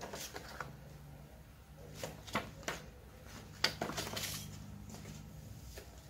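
Paper user manual being flipped and handled: a scattering of short rustles and light clicks, with a brief louder flurry midway, as it is set aside beside the packaging.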